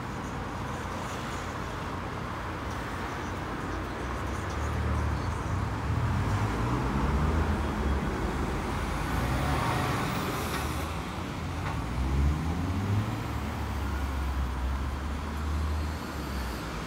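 Road traffic at a junction, with cars and a lorry pulling away, their engines rumbling and rising in pitch as they accelerate. It gets louder from about five seconds in, over a steady hiss of traffic.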